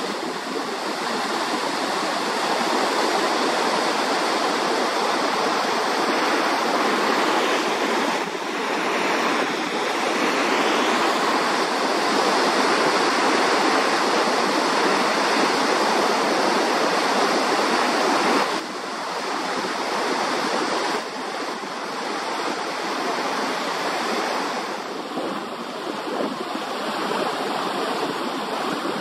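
Steady rush of whitewater rapids on the Bow River, a dense roar of churning water that drops somewhat in loudness about two-thirds of the way through.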